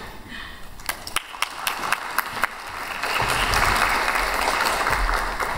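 Audience applauding: a few scattered claps at first, building to steady applause from about halfway through.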